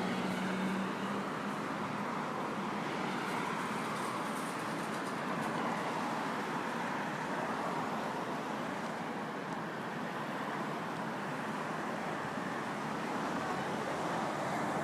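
City street traffic noise: a steady wash of passing vehicles, with a brief low hum in the first second.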